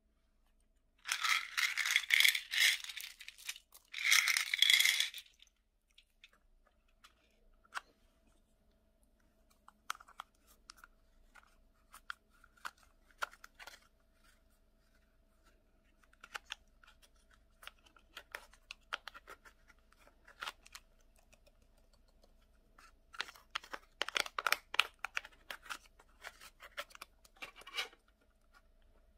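Slime-mixing add-ins being tipped and scraped onto slime: two loud rattling clatters near the start as plastic beads spill out of a plastic box, then scattered scraping and clicking as a spatula crushes and scrapes pressed powder out of a compact, and another dense run of clatter near the end.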